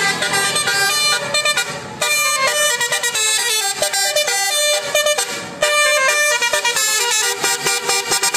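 Multi-tone 'telolet' bus horn playing a fast tune of short notes that change pitch every fraction of a second, with two brief breaks.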